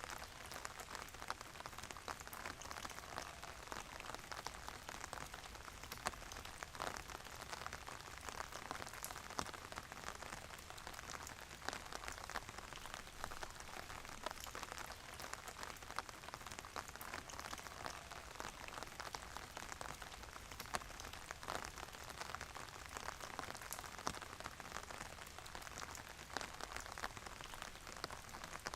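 Steady rain falling, with many separate drops striking a surface as short, sharp ticks over an even hiss.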